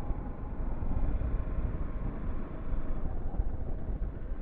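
Bajaj Pulsar NS 200 motorcycle under way on a dirt road: its single-cylinder engine running steadily beneath heavy wind rumble on the microphone.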